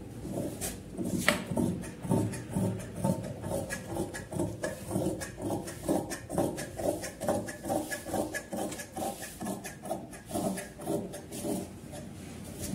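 Large tailor's shears snipping through folded cloth on a wooden cutting table, a steady run of cuts about two a second.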